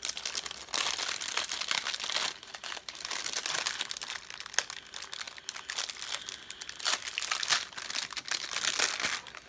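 Small translucent packaging bag crinkling and crackling continuously as it is pulled open and handled by hand.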